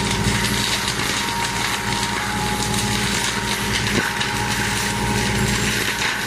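OSMA TLPF UX 160 tractor-mounted forestry mulcher shredding brush, the tractor's engine and the mulcher rotor running steadily under load with a steady high whine and a dense crackle of wood and twigs being chewed up. A sharper knock about four seconds in.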